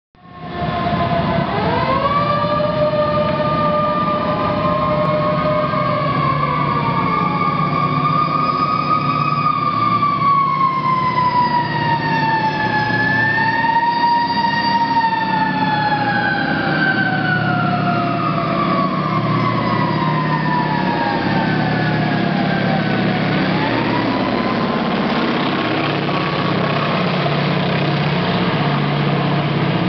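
A siren wailing, starting about a second in, its pitch gliding slowly up and down with a second tone sometimes sounding alongside. Under it is the steady running of the engines of an approaching column of WWII US military vehicles.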